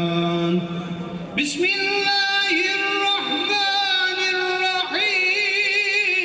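A man chanting solo in Arabic, Islamic religious recitation with long, ornamented melismatic notes. A held note gives way to a short dip about half a second in; a new phrase rises in at about a second and a half and runs in long held tones, and a wavering, trilled phrase starts near the end.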